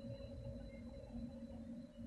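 Faint, steady electric hum of a pair of VR Sr1 electric locomotives with an Intercity train, two unchanging low tones over a low rumble.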